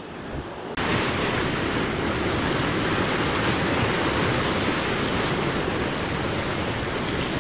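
Sea surf washing and breaking among coastal rocks, a steady rush of water with wind on the microphone. It steps up abruptly about a second in.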